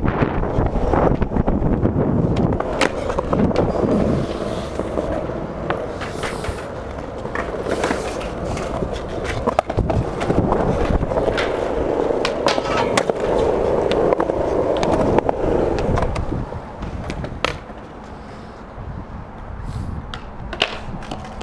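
Skateboard wheels rolling on smooth concrete, a steady rumble broken by many sharp clacks from the boards. The rolling grows quieter about sixteen seconds in.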